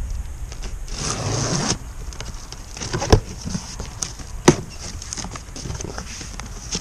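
Cardboard packing box being opened and handled: a rushing scrape about a second in, then a scatter of sharp knocks and taps, two of them louder.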